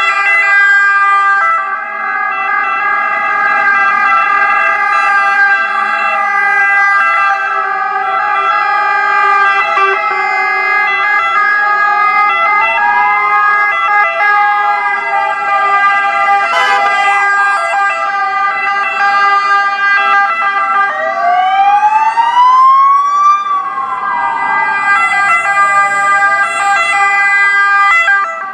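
Ambulance sirens from a passing convoy, several sounding at once as layered steady tones. In the second half a wailing siren rises and falls twice.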